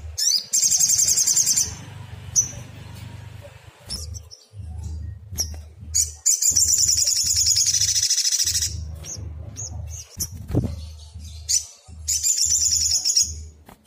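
Sunbird song: three long, rapid, high-pitched trills, each lasting one to two seconds, with short sharp chip notes between them. A low uneven rumble runs underneath.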